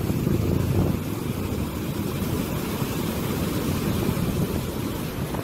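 Floodwater from an overflowing river rushing and churning as it pours over the edge of a road embankment: a steady, deep rushing noise.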